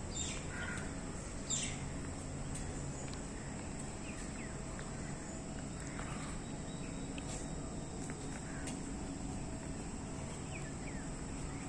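Outdoor evening ambience: a steady high insect drone, with two short falling bird calls near the start and a few faint chirps later.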